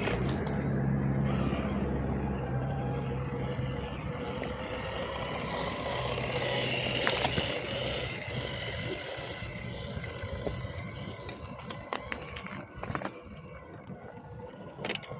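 Radio-controlled crawler truck driving, its electric motor and drivetrain whirring steadily, with a few sharp knocks.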